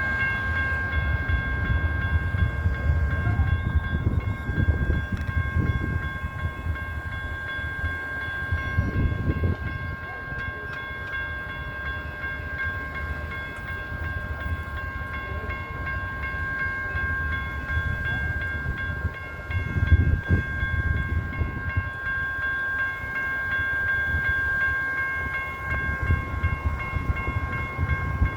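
Railroad crossing gate bell ringing continuously, a steady high metallic ring, over the low rumble of a train passing the crossing.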